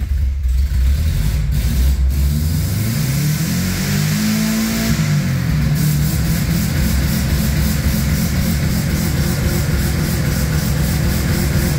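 Subaru EA82 1.8 flat-four engine running just after starting, revved once to about 4,500 rpm around four to five seconds in, then dropping back to a steady fast idle. This is its first run on a newly fitted timing belt, with the ignition timing only roughly set so far.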